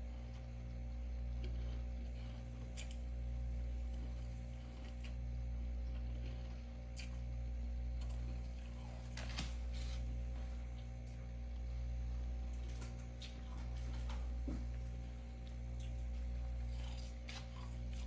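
Steady low electrical hum with a few fainter steady tones above it, swelling and easing about every two seconds, with faint scattered ticks.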